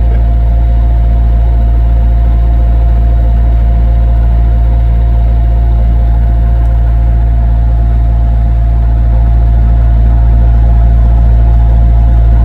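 Bobcat skid-steer loader engine running steadily at idle, a loud, even drone with a steady hum, heard from the machine's cab.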